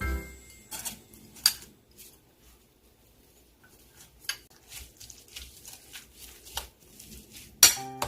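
Kitchen handling noise: a series of light clicks and clinks, with a sharper clack about a second and a half in and a louder one near the end.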